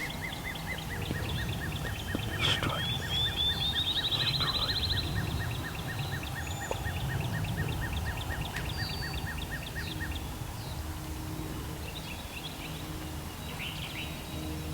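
Songbirds singing: long runs of quick, evenly repeated high notes, with a fast rising trill about three to five seconds in, over a steady low background rumble.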